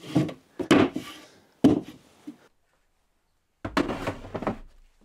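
Wooden OSB shelf slid into a cabinet and knocked into place, with a sharp thunk about one and a half seconds in. After a short silence, a plastic tool case is pushed onto the shelf with a brief scrape and knock.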